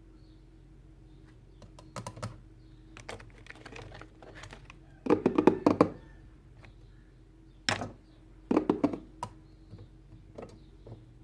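Small hard plastic pieces being handled, giving irregular clicks and clatters in short clusters. The loudest run comes about five to six seconds in, with a single sharp click just before a last cluster.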